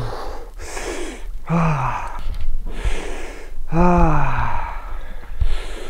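Men gasping and letting out long groans that fall in pitch, with hard breathing between, as they sit in near-freezing lake water: a cold-shock reaction. The longest and loudest groan comes about four seconds in.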